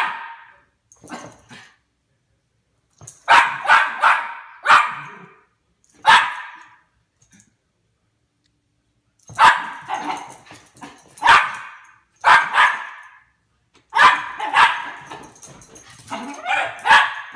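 Small dog barking and yipping excitedly in repeated bursts, a few short calls at a time with quiet pauses between, at the sound of her owner coming home.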